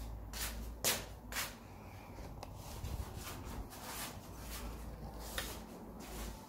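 Rustling, scuffing and light knocks of a handheld phone camera being picked up and carried, a dozen or so brief scuffs with the sharpest about a second in, over a low hum.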